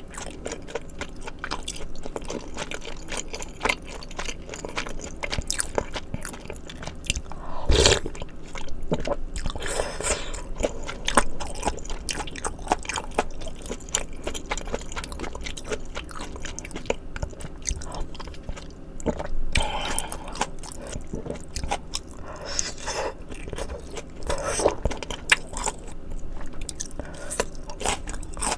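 Close-miked chewing and biting of maratang (spicy Sichuan hot-pot soup with noodles and vegetables), full of small wet crunchy clicks, with louder bites several times.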